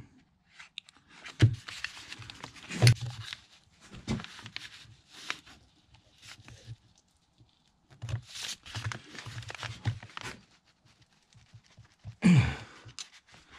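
Small screwdriver scraping and clicking against the stubborn crimped-in valves of a Massey Ferguson 35x fuel lift pump body as they are pried at, in irregular bursts with a pause midway and a louder burst near the end.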